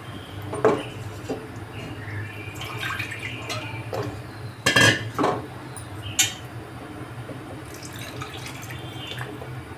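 Wooden spatula stirring thick kidney-bean curry in a non-stick kadai, with a few knocks against the pan, the loudest about halfway through. Near the end, water is poured into the curry from a steel bowl.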